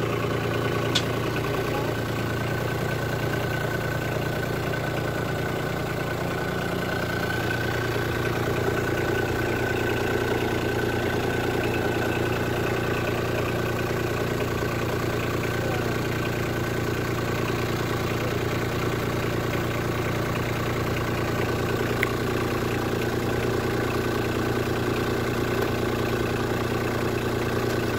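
John Deere 2305 compact tractor's diesel engine running steadily at an even, unchanging speed.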